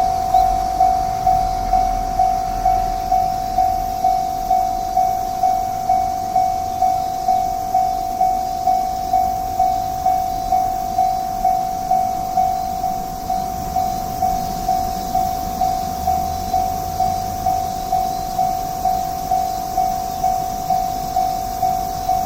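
Japanese railway level-crossing warning bell ringing, an even electronic ding about twice a second, signalling that a train is approaching.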